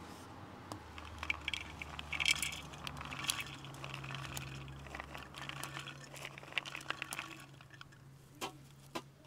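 Handfuls of dried chickpeas and white beans dropped into a glazed clay pot, rattling and clinking against the pot and each other as a quick scatter of small ticks. A few more single clicks come near the end.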